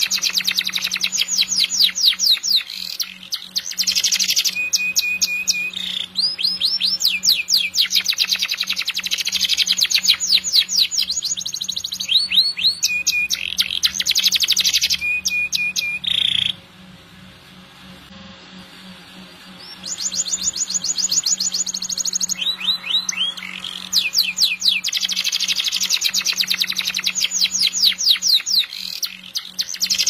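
Domestic canary singing a long, continuous song of fast trills and rolls, with some held notes between phrases. The song breaks off for about three seconds past the middle, then resumes.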